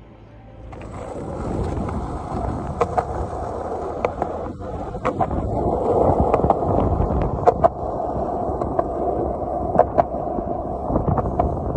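Skateboard wheels rolling on a concrete footpath, a steady rough rumble that starts about a second in, with sharp clicks every so often.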